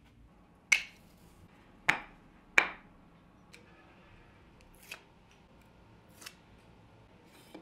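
Small hand-tool clicks from work on a plywood template: three sharp, loud clicks in the first three seconds, then a few faint ticks as a utility knife tip picks at the double-sided tape.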